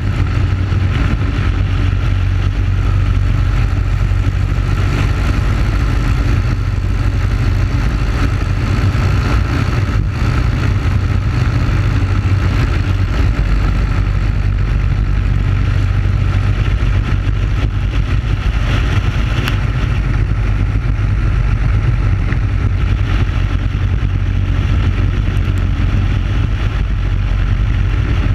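Briggs & Stratton Animal single-cylinder four-stroke kart engine running steadily at high speed, heard on board the kart.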